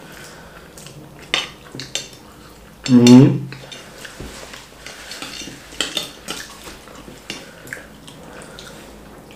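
Cutlery clinking and scraping against dishes during a meal, in scattered sharp clicks. About three seconds in, a short voiced exclamation is the loudest sound.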